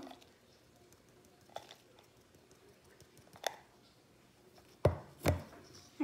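Four scattered short taps and knocks while Bar Keepers Friend powder and water are stirred into a paste, the two loudest close together near the end.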